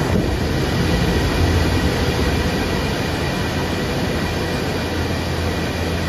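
Massed cooling fans of air-cooled crypto-mining machines running at full speed: a loud, steady whir with a low hum and a few steady whining tones above it, measured at about 105 dB.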